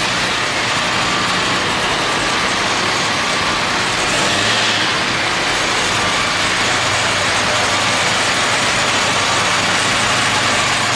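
A car engine running loudly and steadily, a low hum under a dense hiss.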